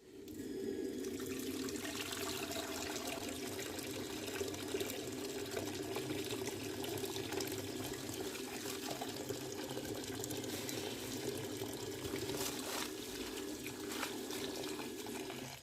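Tap water running steadily into a sink while dry banana leaves are washed under it, with irregular crackles and splashes from the leaves.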